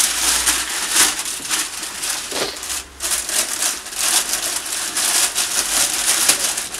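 Packing paper being crumpled and rustled: a continuous crackling with a brief lull about three seconds in.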